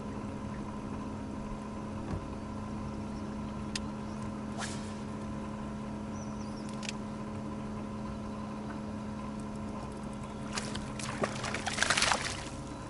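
Electric boat motor running with a steady hum over water noise, with a short burst of splashing and knocks near the end.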